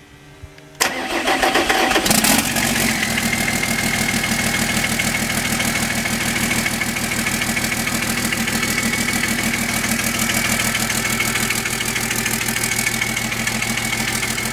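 Sisu Diesel 84CTA 8.4-litre six-cylinder turbo diesel of a generator set starting: it fires up suddenly about a second in and settles within a couple of seconds into a steady idle. It finds its idle on a replacement EDC7 engine control unit.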